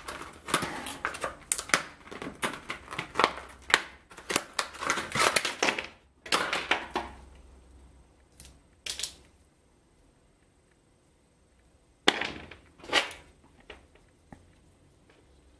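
Packaging being handled, a dense run of sharp clicks and crackles for about seven seconds, then a few scattered clicks with a louder cluster about twelve seconds in.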